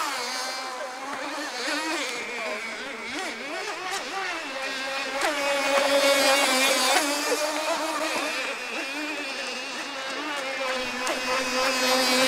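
Radio-controlled model boat motor running on the water, its pitch rising and falling as the throttle changes.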